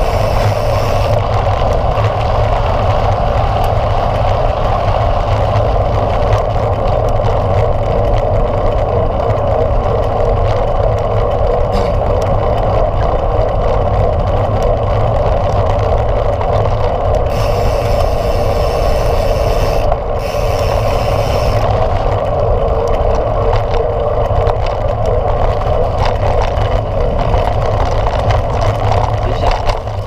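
Mountain bike riding along at speed, heard from a camera on the handlebars: a steady rolling noise of the tyres and frame mixed with wind on the camera. A brighter hiss joins in for a few seconds about two-thirds of the way through.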